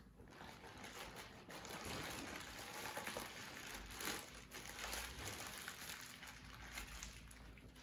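Plastic Ziploc bag crinkling and rustling as it is handled and crumpled in gloved hands.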